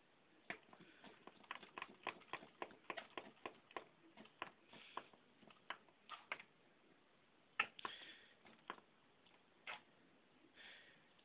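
Cats' claws and paws faintly clicking and tapping on a tile floor in an irregular patter as they pounce and bat at a spider, with a few short soft rustles in between.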